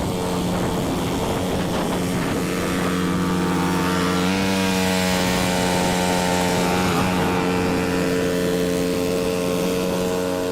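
Cub Cadet 2X 30-inch EFI snow blower's fuel-injected engine running steadily, its pitch stepping up slightly about four seconds in.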